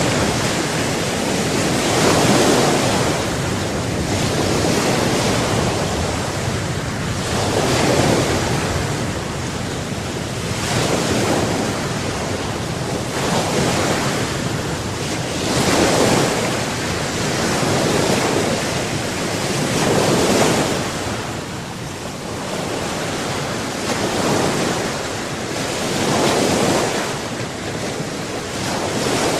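Sea waves breaking and washing ashore, the surf swelling and ebbing every two to three seconds, with wind on the microphone.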